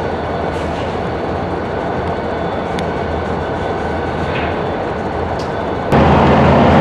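Union Pacific diesel locomotive's engine running with a steady drone as it moves a string of tank cars slowly through the yard. About six seconds in, the sound suddenly gets louder.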